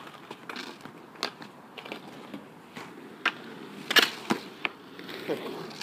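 Roller hockey on asphalt: inline skate wheels rolling, with a scatter of hockey-stick knocks on the ball and pavement. The loudest sharp crack, about four seconds in, is a shot on the goal, followed quickly by a few more knocks off the goalie's stick and pads.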